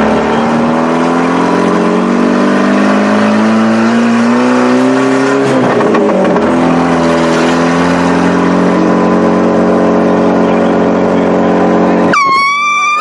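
Car engine speeding up, its pitch rising slowly for about five seconds, then a break as it changes gear, then running steady. Near the end a short air horn blast cuts in.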